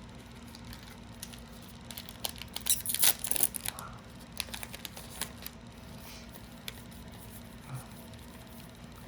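A foil trading-card booster pack being torn open and crinkled. There is a burst of ripping and crackling about two and a half to three and a half seconds in, followed by a few lighter crinkles.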